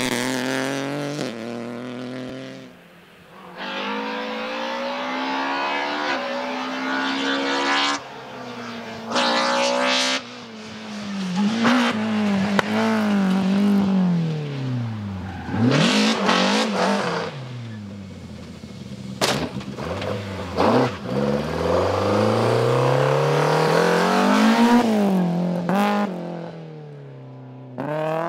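Rally cars at full throttle on a sprint stage, one after another, their engines revving hard and the pitch climbing and dropping with each gear change and lift. The sound changes abruptly several times as one car gives way to the next.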